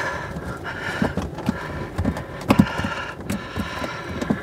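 Phillips screwdriver and hands working screws out of a plastic panel inside a caravan cassette-toilet compartment: irregular light clicks and knocks, the sharpest about two and a half seconds in.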